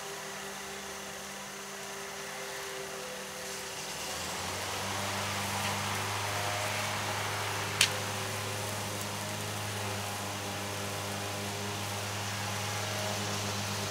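A steady low machine hum, like a motor running, that comes in about four seconds in and keeps going, with one sharp click about eight seconds in.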